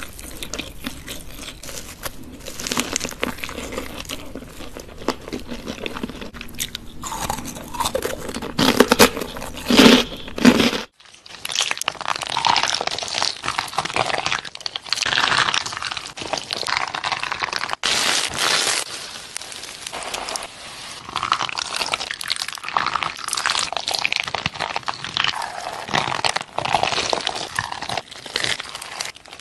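Close-miked eating: biting and chewing a corn dog coated in crushed hot Cheetos and dipped in cheese sauce, loudest just before a sudden break about 11 seconds in. After that, fingers squeeze and knead a ball of glittery beads, making a dense run of small crackles and clicks.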